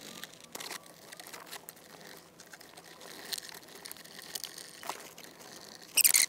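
Faint scraping and small clicks of a hand screwdriver turning screws into pilot holes in thin plastic trim. A short, sharp clatter comes near the end.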